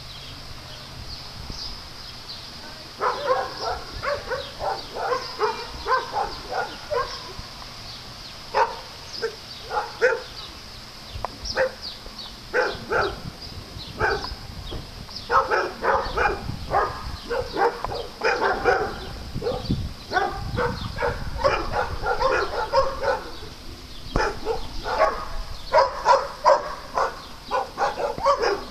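Dogs barking repeatedly in quick runs of short barks, starting about three seconds in.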